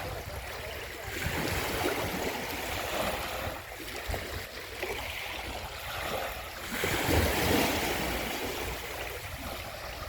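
Sea waves washing ashore: a steady rush of surf that swells louder about a second in and again around seven seconds.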